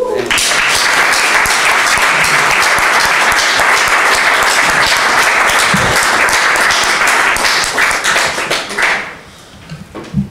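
Audience applauding, a dense steady clapping that dies away about nine seconds in.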